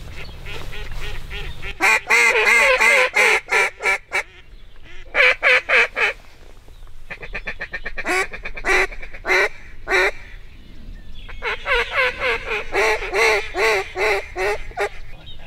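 Hand-blown waterfowl call sounding in four loud runs of rapid calls, the third a faster chatter, used to draw incoming ducks.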